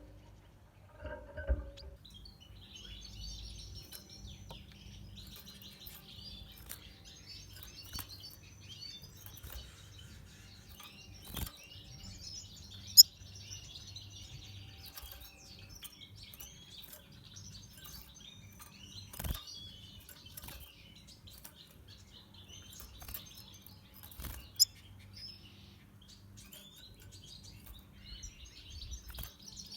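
Red siskins twittering and singing in high, rapid chirps, starting about two seconds in. A few sharp clicks cut through, the loudest about halfway through and again near the end.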